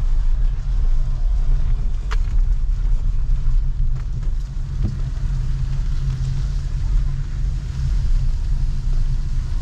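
Steady low rumble of street traffic in heavy rain, with a faint hiss over it and a few brief clicks.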